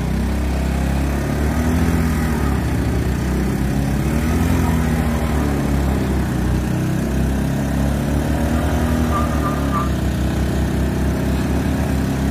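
Two 110 cc scooter engines, a Honda Activa 4G and a Honda Aviator, running hard at high throttle as they pull against each other, their pitch wavering up and down under load.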